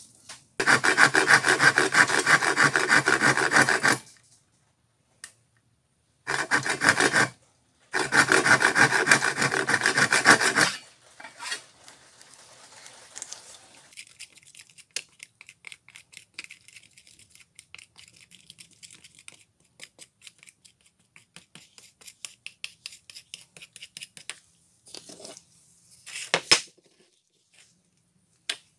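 The end of a wooden hammer handle rubbed hard on sandpaper in three bouts, a rasping scrub, the second bout short. Then quieter fine scraping and small clicks as a paste of glue and sanding dust is stirred in a small plastic cup with a metal tool.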